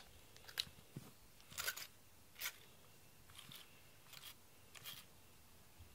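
A grooming brush drawn through a cat's fur in short strokes, a faint scratchy rasp about once a second.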